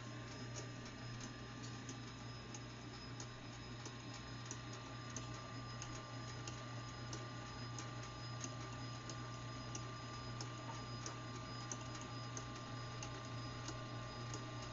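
B15 planetary stand mixer running with flour in its bowl: a steady motor hum with a light tick repeating at an even pace, about one and a half a second.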